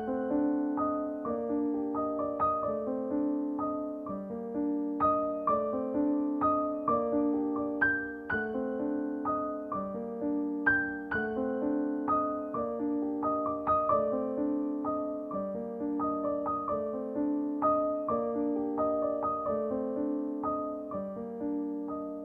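Background music: a gentle piano tune with steady, evenly paced notes.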